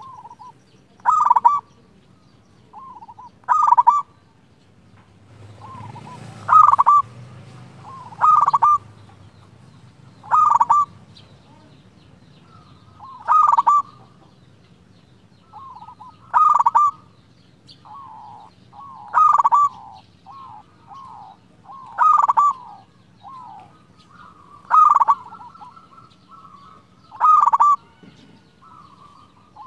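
Zebra dove (perkutut) cooing: a loud, clear phrase repeated about every two to three seconds, about eleven times, with softer coos between them.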